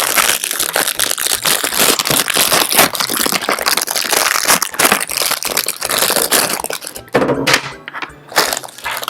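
Plastic packaging crinkling and rustling as it is handled, a dense, continuous crackle that thins into a few separate rustles and knocks after about seven seconds.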